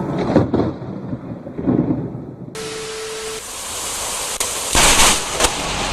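Close lightning strikes in heavy rain. A few sudden thunder cracks come early on, then steady rain noise, and about five seconds in a very close strike gives the loudest burst of thunder, followed by one sharp crack.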